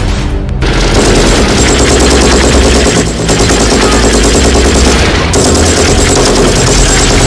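Recorded machine-gun fire played loud as a sound effect: continuous rapid automatic gunfire, with a brief lull about three seconds in.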